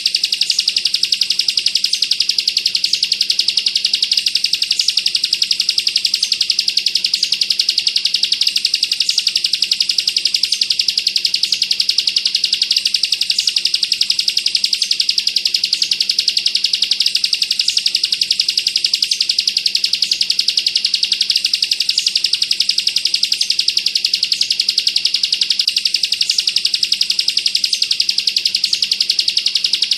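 Ciblek kristal (bar-winged prinia) singing a continuous, very rapid trill of high chirping notes without a break: the dense 'bren rapat' song used as a master recording for training cage birds.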